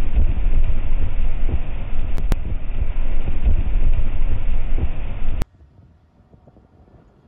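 Strong storm wind buffeting the microphone, a loud, uneven low rumble, which cuts off suddenly a little over five seconds in, leaving only faint background noise.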